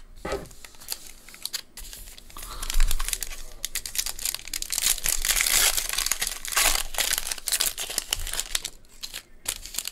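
Foil wrapper of a 2021 Bowman baseball card hobby pack being torn open and crinkled by hand, a dense papery crackle that is loudest midway.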